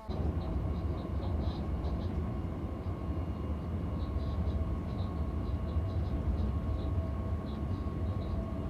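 Passenger train running on the rails: a steady low rumble with a faint steady whine above it and light scattered ticks and rattles.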